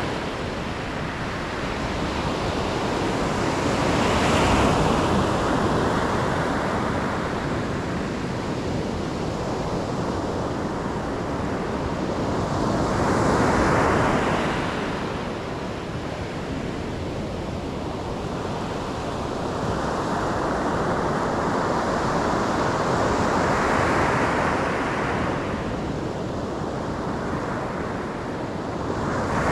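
Ocean surf: waves break and wash up the shore, swelling louder three times, about ten seconds apart, over a continuous rushing wash.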